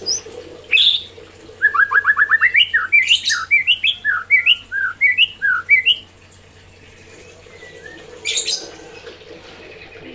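White-rumped shama (murai batu) calling in a cage: a fast run of rising notes, then a string of separate slurred whistled notes lasting about four seconds. Two short rasping bursts come near 3 s and 8.5 s.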